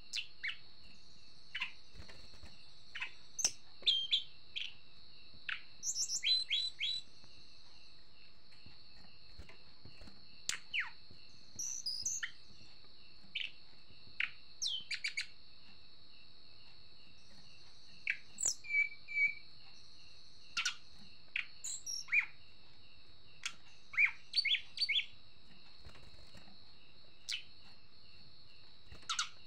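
A tledekan gunung flowerpecker calling in an excited state: short, sharp, high chirps and ticking notes in irregular bursts with pauses between. A steady high-pitched hum runs underneath.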